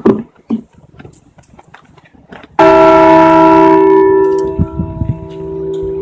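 Liberty Bell replica struck once about two and a half seconds in, ringing on with a deep hum and several steady overtones that slowly fade.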